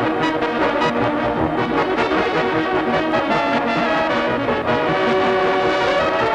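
Background music played by brass instruments, a melody of short changing notes at an even loudness.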